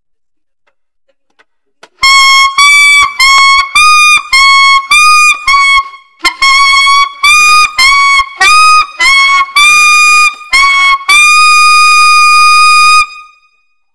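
2015 P. Mauriat 76XVII alto saxophone with a metal mouthpiece, played solo high in its altissimo register. After about two seconds of silence comes a quick phrase of short, separated high notes, each bending up a little at its start, then a brief break. A second, longer phrase follows and ends on a long held note that fades out near the end.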